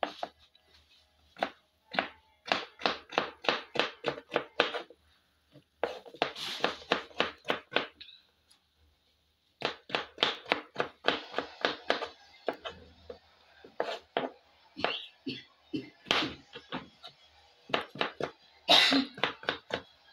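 Large kitchen knife chopping a peeled potato into cubes on a wooden chopping board: rapid runs of knocks, about three or four a second, with a short pause near the middle.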